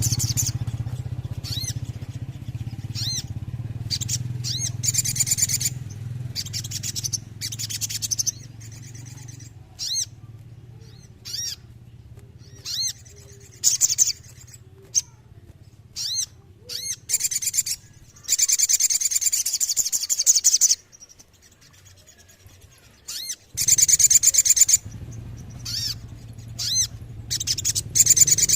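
A sogon songbird singing: short, sharp high chirps alternating with long, rapid high trills of a few seconds each, over a low steady hum.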